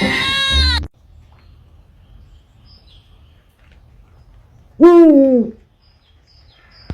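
A single loud animal call, about half a second long, that rises slightly in pitch and then falls, heard over a faint low hum. Under a second in, the sound of the clip before it cuts off abruptly.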